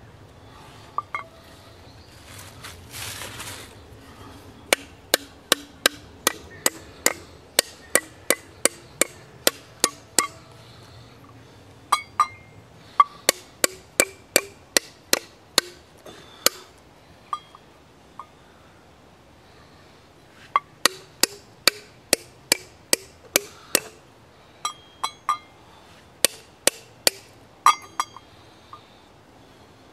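A hammer tapping steel nails into the top of a wooden stump to set them as a pot stand. The strikes come in three runs of quick, evenly spaced blows, about two or three a second, with pauses between the runs. Each blow is sharp and has a short metallic ring.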